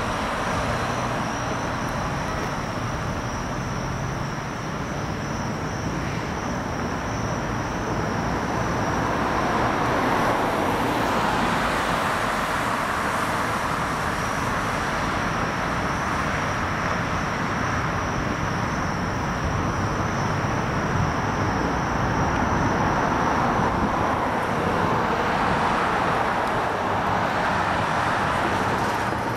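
Steady vehicle and traffic noise: engines and tyres on the road, with a thin high whine that drops out for a few seconds partway through.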